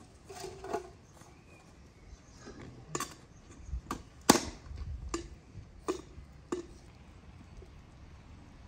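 A series of sharp metallic clinks and knocks from a wood-fired samovar's top fittings being handled, spaced a second or so apart, the loudest about four seconds in.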